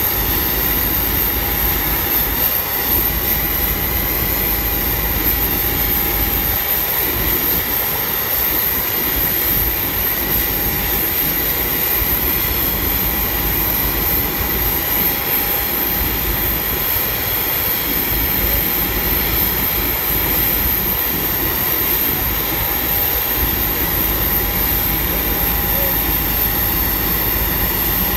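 Jet aircraft engine noise, a steady high-pitched whine over a low rumble.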